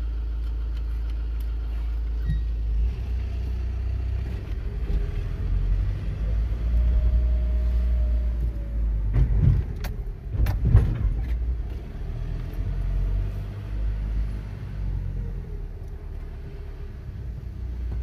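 Car running and driving slowly, heard from inside the cabin as a steady low rumble, with a few sharp thumps about halfway through.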